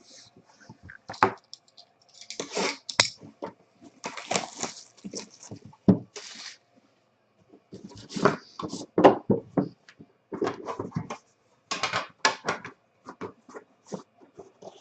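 A sealed trading-card box being opened by hand: irregular bursts of crinkling and tearing wrapper and cardboard, with sharp clicks of handling in between.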